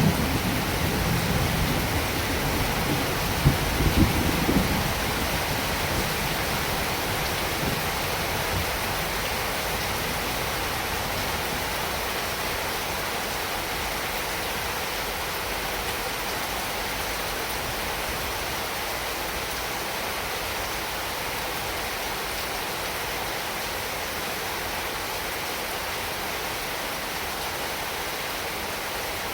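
Heavy rain falling steadily, a dense even hiss. Low rumbles of thunder sound in the first few seconds and then die away.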